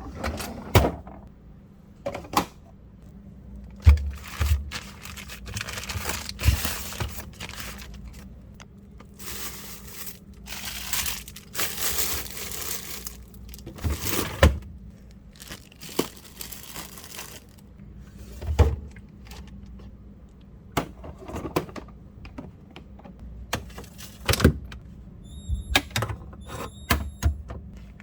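Household cleaning sounds: irregular knocks and clunks of items being handled and set down, with stretches of rustling or wiping noise, over a steady low hum.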